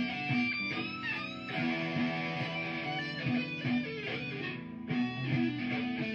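Electric guitar playing an improvised solo with bent notes, over a repeating looped guitar part.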